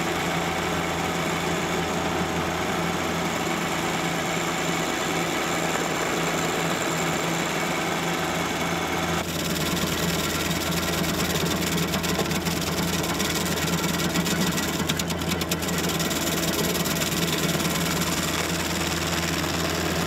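John Deere sub-compact tractor's three-cylinder diesel running steadily at working speed, driving a PTO-powered Baumalight 1P24 stump grinder whose cutting wheel is chewing into a tree stump.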